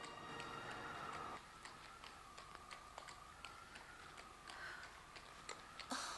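Faint, irregular footsteps and hoof steps of people and a horse walking on a hard street, several small clicks a second. Soft music fades out about a second in, and a brief louder noise comes just before the end.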